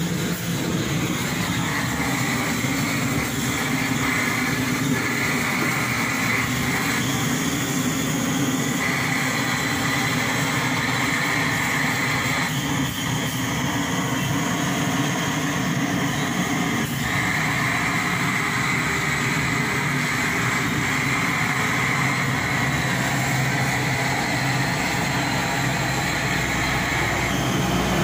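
Handheld blowtorch flame burning steadily, a constant loud rushing hiss as it singes the hair off a goat carcass.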